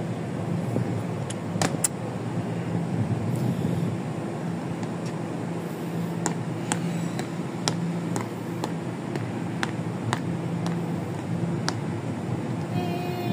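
Taiwan Railway EMU700 electric commuter train pulling out of the station: a steady running rumble with a low hum and scattered clicks from the wheels on the track.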